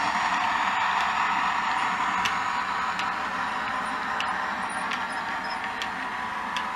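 Model railway freight train running past: the DCC sound decoder's diesel engine sound from the locomotive's speaker, with a few faint wheel clicks over the rail joints, getting slightly quieter towards the end.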